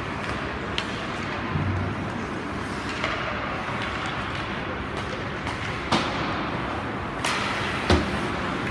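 Ice hockey game noise in a rink: a steady hum of the arena with sharp clacks of sticks and puck every second or two, the loudest about six and eight seconds in, the last with a low thud.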